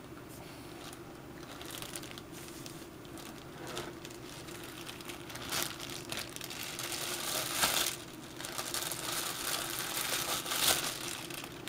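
A clear plastic bag worn over the hand as a makeshift glove, crinkling and rustling irregularly as oil dye is worked onto leather; the crinkling gets louder in the second half.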